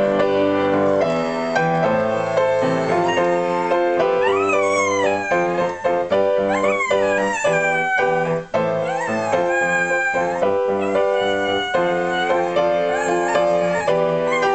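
A piano plays a melody while a Border Terrier howls along. From about four seconds in she gives several drawn-out howls, each sliding up and then falling in pitch.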